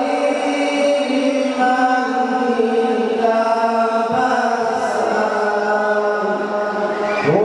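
Male voices chanting a noha, a Shia mourning lament, in long held, slowly sliding notes, sung into microphones.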